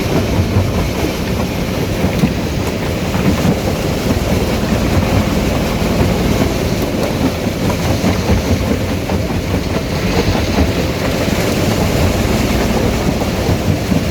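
Stone crusher running steadily under load, a loud, continuous clatter of rock being broken.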